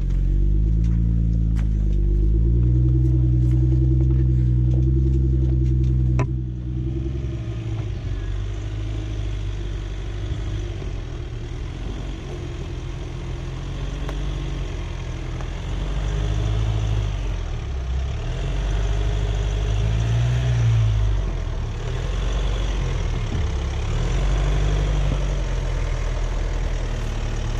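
Jeep engine running at low revs off-road, its note rising and falling as the throttle is worked. About six seconds in the sound changes abruptly, and a steady hiss joins the engine from then on.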